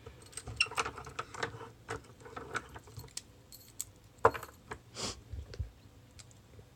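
Light metallic clicks and clinks of an opened cheap padlock and its pick and shim being handled, with the sharpest click a little over four seconds in.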